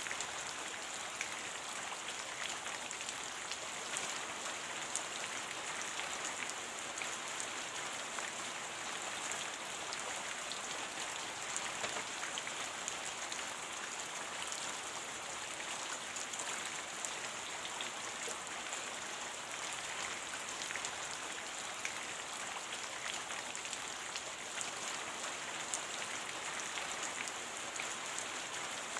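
Steady rain falling: an even, bright hiss dotted with many small ticks of single drops.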